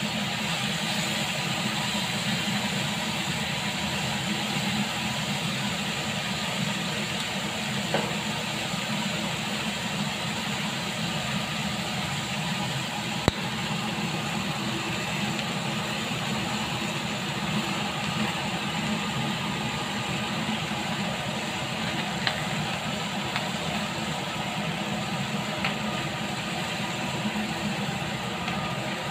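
Lamb chops sizzling steadily in a hot grill pan, with a single sharp click about 13 seconds in.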